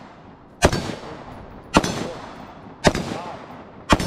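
AR-style rifle fired in a steady, evenly paced string: four sharp shots about a second apart, each followed by a short echo.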